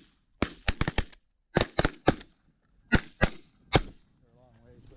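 A volley of shotgun blasts from several hunters firing together: about a dozen shots in quick, uneven succession over some three and a half seconds. A short honk follows near the end.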